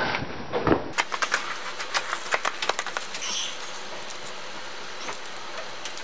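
A quick run of light metallic clicks and clinks from hand tools being worked on the tractor's hub for a second or two, then quieter shop background.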